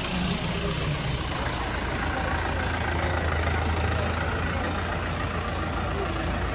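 A vehicle engine idling: a steady low hum over constant background noise.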